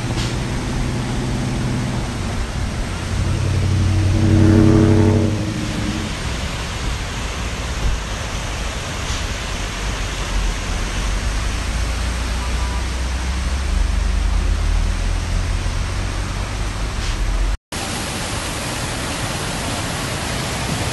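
Steady rushing noise of floodwater with vehicle engines running, one passing loudest about four to five seconds in. The sound drops out for an instant near the end.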